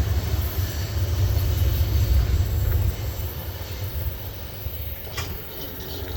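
Freight train rolling by, a deep rumble of wheels and cars that drops off about three seconds in. A brief sharp click near the end.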